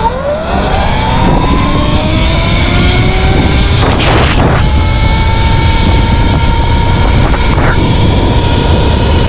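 Sur-Ron electric dirt bike's motor whining under acceleration: the pitch rises over about four seconds, then holds steady. Heavy wind noise on the microphone runs underneath, with a louder gust about four seconds in.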